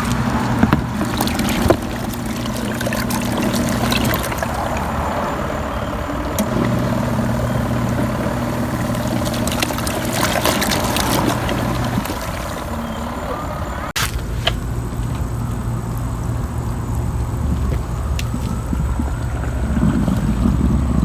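Kuppet Mini portable washing machine running a rinse cycle: the electric pulsator motor hums steadily, pausing for a couple of seconds and starting again as the pulsator alternates direction, over water sloshing in the tub. A sudden break comes about two-thirds of the way through.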